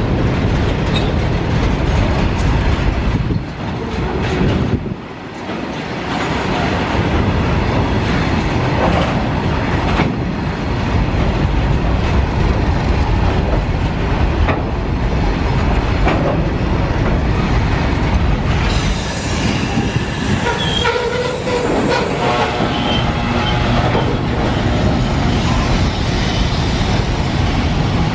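Freight train wagons rolling past close by, wheels clacking over rail joints with a steady rumble, and a patch of thin squealing tones from the wheels about two-thirds of the way through.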